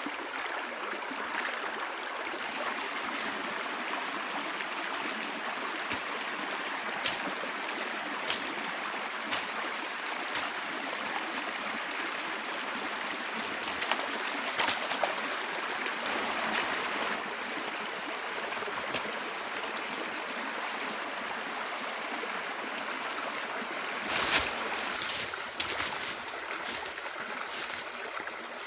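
A stream of water running steadily, with scattered sharp clicks now and then.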